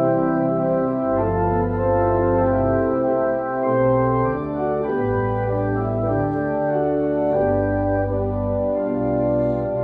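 Organ playing slow, sustained chords, the harmony and a low bass note changing every second or two.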